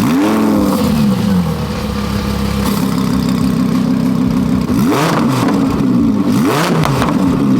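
Lamborghini Huracán LP 610-4's naturally aspirated 5.2-litre V10 flaring up on start-up and settling into a steady idle, then blipped twice, the revs rising and falling quickly about five and six and a half seconds in.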